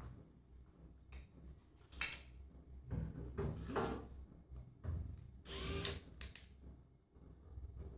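Cordless drill-driver run in about three short bursts, its motor whirring up and down as it drives small black screws into the battery case, with light clicks of handling in between.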